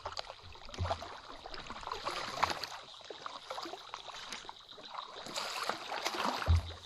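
Paddles dipping and splashing through pond water beside a small rowboat, with dull low thumps about a second in and near the end.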